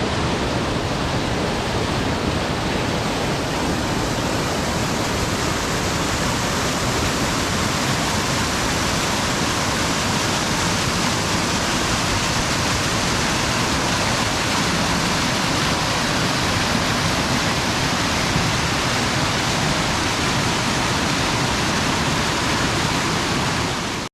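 Waterfall pouring with a steady, even rush of water.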